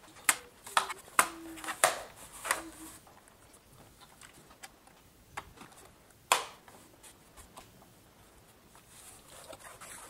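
A small screwdriver and hands on the plastic underside of a Lenovo G550 laptop, undoing the hard-drive bay cover screws. There are several sharp clicks and taps in the first three seconds, then faint scraping, and one sharp knock a little after six seconds.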